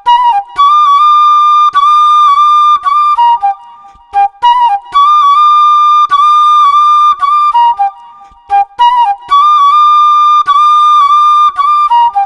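Flute playing a short melody: a few quick notes rising to a long held high note, the phrase played three times.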